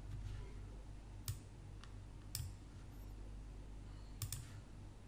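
Faint, sharp computer mouse clicks, about five scattered through, over a low steady hum.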